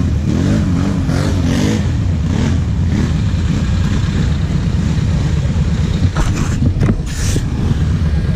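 Kawasaki KFX 700 quad's V-twin engine running at low revs. Its pitch rises and falls over the first two seconds, then it holds steady, with a few brief harsh bursts of noise about six to seven seconds in.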